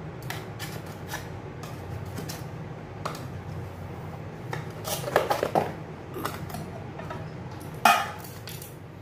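Light scrapes and clinks of a knife worked around the inside of an aluminium baking tin to loosen the bread, then the tin being handled and turned over: a clatter about five seconds in and a sharp knock about eight seconds in as it comes down on a wooden board.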